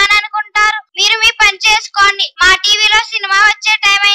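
A child's high voice singing a song in short phrases with brief breaks between them.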